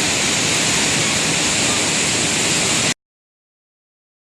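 Waterfall: a steady rush of falling water that cuts off suddenly about three seconds in.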